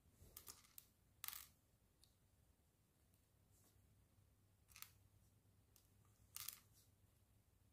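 Faint clicks and light rattles of mini plastic building bricks being handled and pressed together, in four short bursts with near silence between them.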